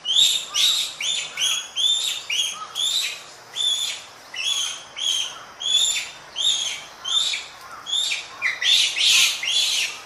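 Japanese macaque (Macaca fuscata) calling: a rapid series of short, high-pitched calls, each rising and falling, about two a second.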